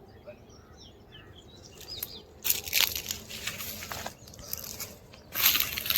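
Small birds chirping faintly in short notes, then loud bursts of rustling, crackling noise from about two and a half seconds in, and again near the end.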